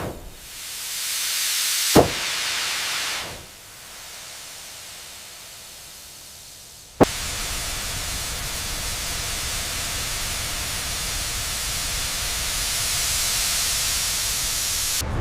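Steady hissing noise, like steam or air escaping, that swells over the first two seconds, falls away quieter for a few seconds, then comes back and holds. Two sharp clicks break it, about two seconds in and again about seven seconds in.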